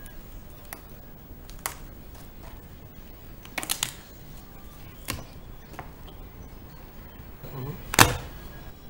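A knife cutting and prying at a suede Adidas Spezial sneaker, its upper and rubber sole: scattered sharp clicks and scrapes, with a quick cluster of clicks a little past three and a half seconds in and one loud sharp knock about eight seconds in.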